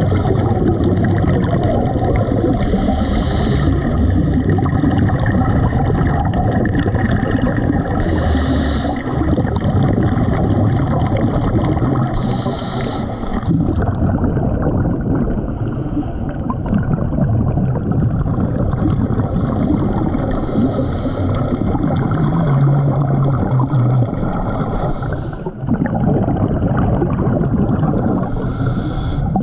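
Underwater sound of a scuba diver breathing through a regulator: a steady rumble of bubbles, with a brief hissing surge every few seconds.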